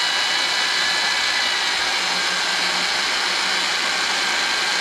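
Corded electric drill with a drywall mixing paddle running at a steady speed, stirring sugar and warm water into syrup in a 5-gallon bucket: an even motor whine.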